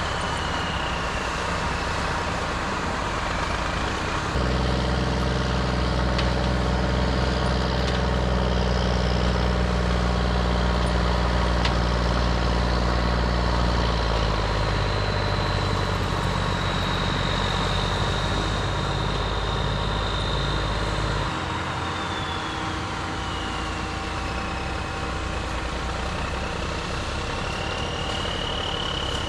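Diesel engine of heavy earthmoving machinery running steadily. It grows louder about four seconds in and eases back about twenty seconds in, with a high whine rising and falling in pitch over it.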